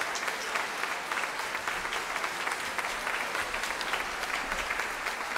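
Audience and performers applauding: steady, dense hand clapping in a large hall.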